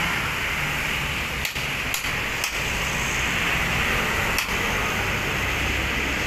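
Steady hiss of drizzling rain, crossed by four sharp metallic taps of hand tools as mechanics work at a coach's rear wheel during repairs.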